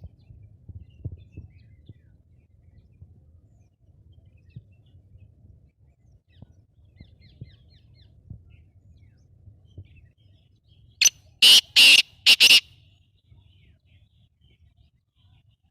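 Black francolin calling: four loud, harsh notes in quick succession about eleven seconds in, over a faint low rumble.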